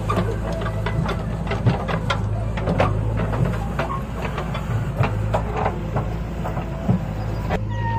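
Diesel engines of a Mahindra 575 DI tractor and a JCB backhoe loader running steadily, with scattered knocks and clatter from the backhoe's bucket digging into earth and stones.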